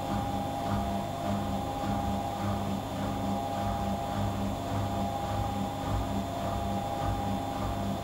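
Gorenje WA65205 front-loading washing machine running in its final spin with a king-size duvet in the drum. Its low hum pulses about twice a second as the drum turns, with a steady higher whine above it.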